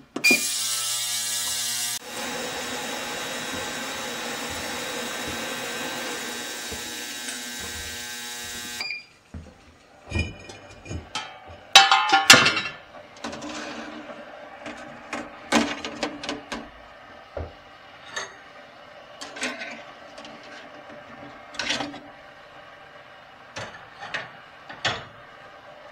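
Digital ultrasonic cleaner running on hot water and Simple Green: a loud, steady buzzing hiss, louder for the first two seconds, that stops about nine seconds in with a short beep. After that come scattered clanks and clicks as the steel lid is set aside and the parts are knocked about in the metal basket.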